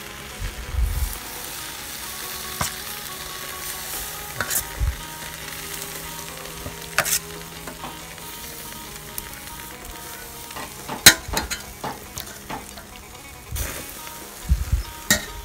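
Marinated pork small intestines sizzling on a wire grill over charcoal, with a steady hiss. Scattered sharp clicks and dull knocks come as more pieces are tipped from a steel bowl onto the grate.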